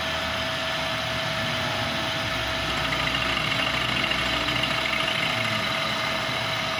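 Workshop machinery running steadily, with a constant whine over a low, engine-like throb, a little louder in the middle.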